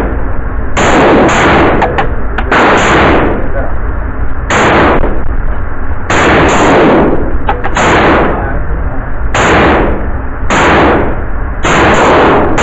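Semi-automatic PPS-43 in 7.62×25mm Tokarev firing about a dozen single shots at uneven intervals, some in quick pairs. Each shot is very loud and echoes off the walls of an indoor range.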